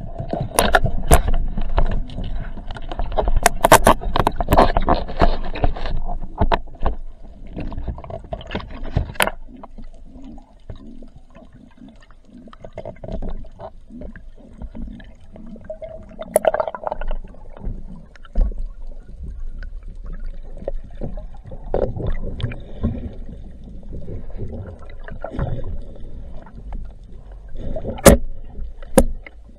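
Underwater sound picked up by a diver's camera: muffled water swishing and rushing as the diver moves, with scattered clicks and knocks, busiest in the first several seconds and then quieter, over a faint steady hum. Two sharp cracks stand out, one about nine seconds in and one near the end.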